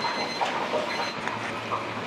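Commercial kitchen working noise: a steady rushing background with light clatter. A low machine hum comes in a little over a second in.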